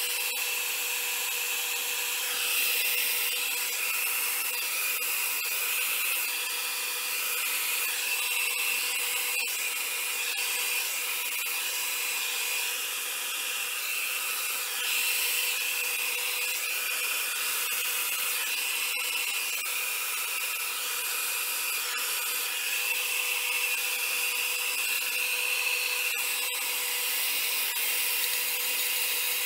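Revlon brush blow dryer running steadily: a constant rush of air with a steady motor whine.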